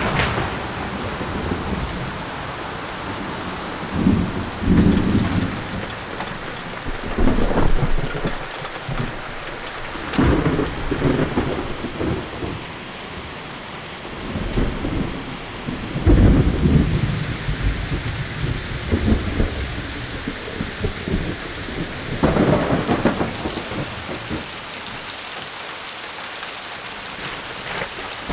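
Thunderstorm: steady heavy rain with rolling thunder, several deep peals that swell and fade every few seconds over the rain.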